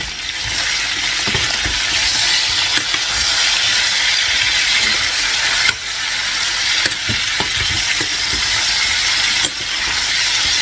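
Chicken pieces and halved garlic cloves frying in oil in a casserole, a steady sizzle, with a few sharp clicks along the way.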